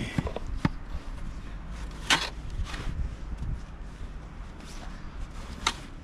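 A handful of short crunches and scrapes in snow, the loudest about two seconds in and another near the end, over a steady low rumble.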